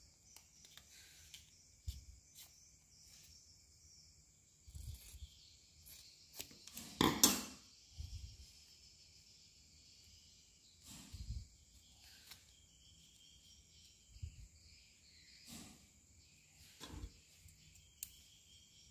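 A metal blade scraping and cutting a short piece of white PVC pipe held in the hand: scattered scrapes and clicks, with one louder, longer scrape about seven seconds in.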